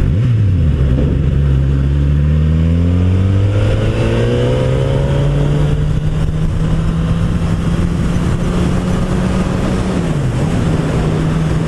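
Motorcycle engine under way. Its pitch drops as it slows, then climbs steadily for several seconds as the bike accelerates, then holds steady at cruise with a brief dip near the end.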